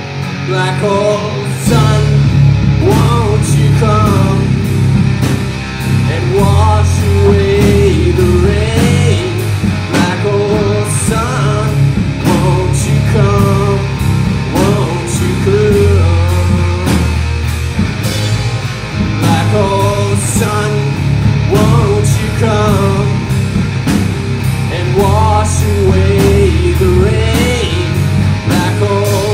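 Live rock band playing: electric guitar, electric bass and drum kit, with a male lead vocal singing over them. Cymbals are struck about twice a second throughout.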